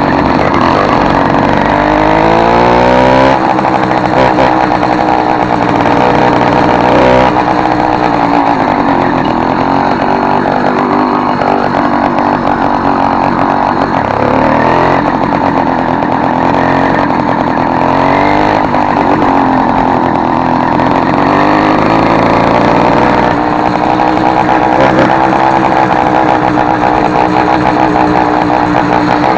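Motorized bicycle engine running loud through an exhaust whose tip has been replaced with a soda-can lid, giving a raspy note compared to an RD 135's. The revs climb steeply in the first few seconds, drop back, then rise and fall several more times.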